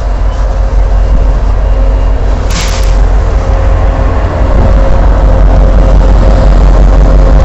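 Diesel locomotives on the rear of a loaded coal train passing close by: engines running with a steady whine and a heavy rumble of wheels on rail. There is a short hiss about two and a half seconds in, and the sound gets louder about halfway through as the next locomotive comes alongside.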